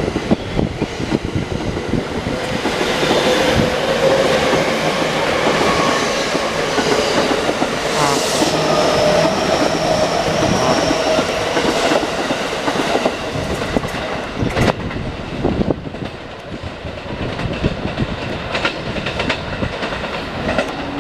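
JR East E231-series and E233-3000-series electric train departing a station: traction motors whine, rising slowly in pitch as it gains speed, and wheels click over the rail joints as the cars run past. It grows somewhat quieter about sixteen seconds in.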